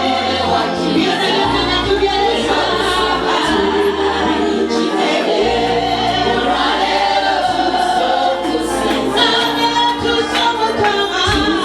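Choir singing gospel music with instrumental backing and a steady bass line.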